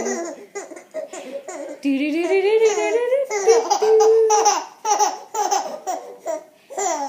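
Baby laughing in repeated short bursts, with a longer rising laugh about two seconds in.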